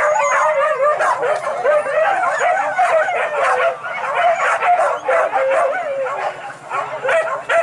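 A pack of boar-hunting dogs yelping and baying together, many high wavering cries overlapping without a break.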